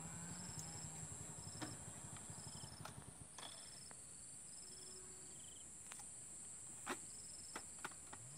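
Insects chirping in the marsh: a steady high-pitched drone with short high chirps repeating about once a second, and a few faint sharp ticks.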